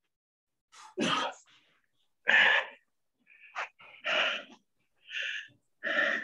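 A man breathing hard under exertion during push-ups: a series of short, forceful, cough-like exhales through the mouth, about one a second.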